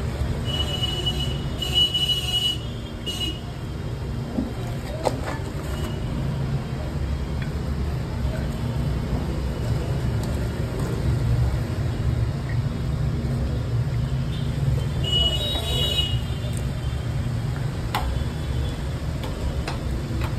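Steady low rumble of street traffic, with a few brief high squeaks near the start and again near the end.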